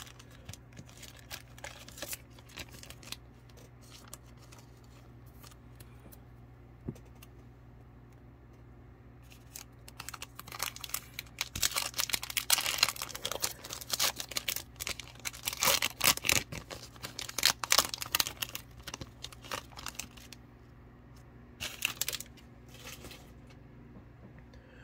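A trading-card pack wrapper being torn open by hand and crinkling, in a dense run from about ten seconds in to about nineteen seconds, with a short burst of crinkling near the end. Before that, scattered light clicks of cards being handled.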